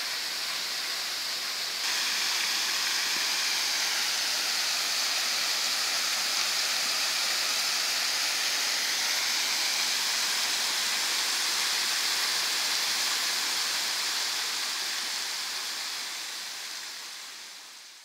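Steady hissing rush of a tall, thin waterfall falling as spray onto rocks, bright rather than deep. It gets louder about two seconds in and fades out over the last few seconds.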